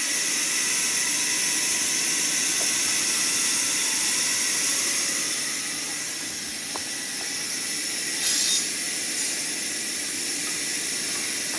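Band saw cutting a spruce log: a steady high hiss of the blade running through the wood over the machine's steady hum, with a brief louder burst of hiss about eight seconds in.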